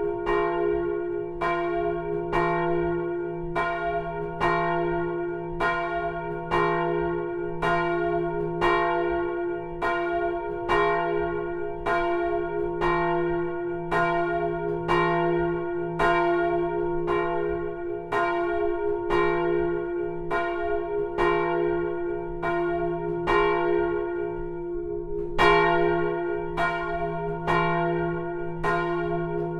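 A single 820 kg bronze church bell, cast in 1515 and tuned to F, swinging full circle so that its clapper strikes about four times every three seconds. Each stroke rings on into the next, over a steady deep hum.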